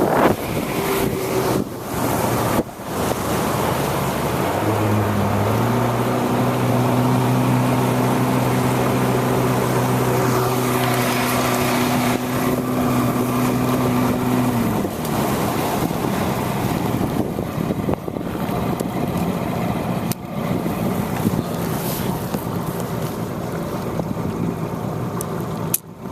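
Small fishing boat under way: its motor runs under steady wind and water noise. About five seconds in, an engine hum steps up in pitch, holds steady for about ten seconds, then drops away.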